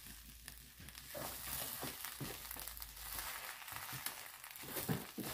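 Wooden spatula stirring and turning jollof rice in a hot frying pan: an irregular scraping of the rice over a soft, steady sizzle.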